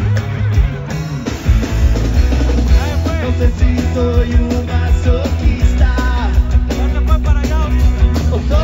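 Rock band playing live: drums, bass guitar and electric guitar, with singing.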